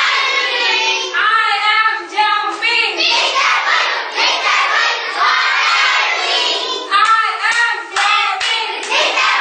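A group of young children singing or chanting together in chorus, with a few sharp hand claps, most clearly about seven seconds in.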